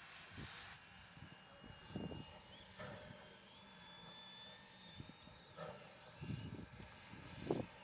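WW-class 4-6-4 steam tank locomotive approaching with low, uneven exhaust chuffs, the loudest near the end. About three seconds in, its whistle sounds for about three seconds: a high steady note that rises in pitch as it opens and drops as it shuts off.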